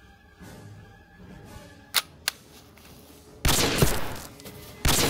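Gunfire: two single sharp shots about two seconds in, then loud bursts of rapid automatic fire from about three and a half seconds and again near the end.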